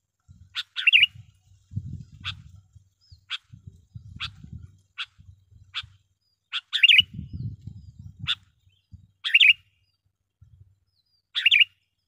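Sooty-headed bulbul (kutilang) calling: short sharp chip notes about once a second, broken four times by a louder, quick warbled phrase.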